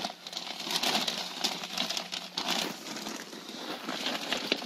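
Pink fiberglass insulation batts being shoved and handled up against the floor, a close, irregular rustling and crinkling with small crackles throughout.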